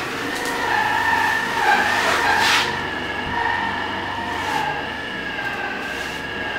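Darby scraping across fresh earth plaster on a wall as it levels the surface, the loudest stroke about two and a half seconds in. A steady high whine sounds underneath.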